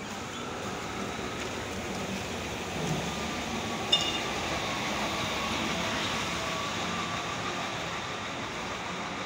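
City buses running at the curb: a steady engine hum with a faint whine that wavers slowly in pitch. A short high ping cuts in about four seconds in.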